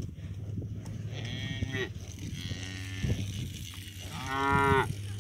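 Salers cattle mooing: a moderate moo about a second in, a fainter one soon after, then a loud, longer moo near the end.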